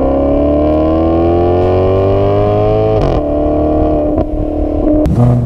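Maserati V8 engine accelerating hard, its pitch rising for about three seconds, then dropping sharply at an upshift and pulling on in the next gear.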